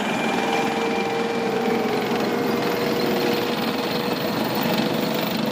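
A small machine running steadily, a fast even rattling noise with a faint steady hum through it.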